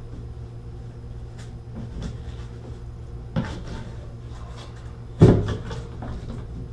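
Channel-lock pliers clunking on a bathtub spout as it is turned. There is a light knock about three seconds in and a louder clunk a couple of seconds later.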